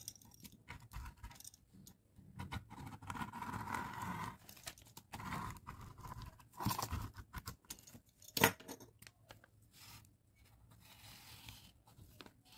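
Dressmaker's tracing wheel rolled along a paper pattern with a board underneath, giving an irregular crackly scratching and crunching as its toothed wheel pricks through the paper. A single sharp click about eight seconds in is the loudest sound.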